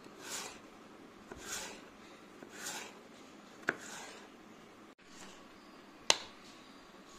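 Kitchen knife slicing through a peeled raw potato on a wooden cutting board: four soft slicing strokes about a second apart, then two sharp knocks on the board, the louder one about six seconds in.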